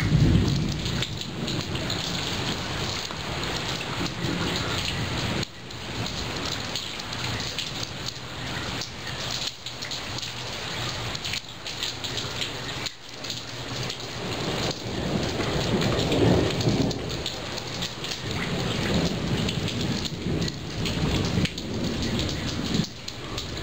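Monsoon thunderstorm: heavy rain falling steadily, with low thunder rumbling near the start and again about two-thirds of the way through.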